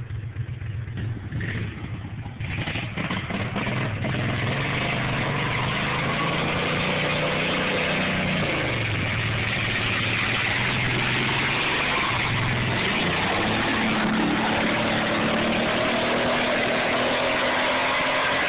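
Riding lawn mower's engine running hard under load as it drives through deep runny mud. It grows loud about two seconds in. Its note drops and recovers twice midway, then climbs slowly near the end.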